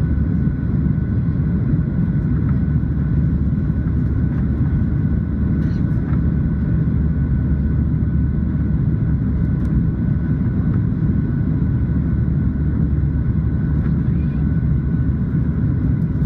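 Steady cabin noise of a Boeing 737-700 in flight: a deep, even rumble of engines and airflow with a faint steady whine above it.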